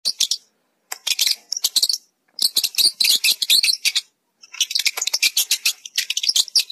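Rats gnawing and chewing food, heard as rapid crisp clicking in short bursts with gaps of silence between.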